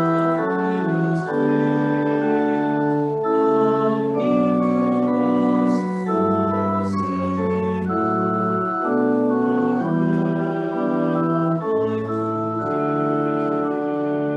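Organ playing a slow piece in held, sustained chords that change every second or so.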